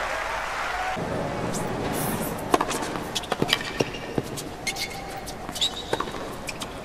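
Tennis court sound: crowd noise that cuts off suddenly about a second in, then a tennis ball bounced several times on a hard court, as sharp separate taps, before a serve.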